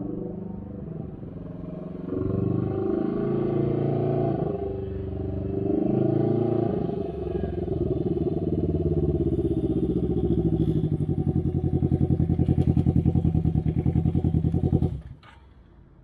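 A Can-Am Ryker three-wheeler's engine and exhaust running, revved up and down several times, then held at a steady speed with an even pulsing beat. The engine cuts off abruptly about fifteen seconds in.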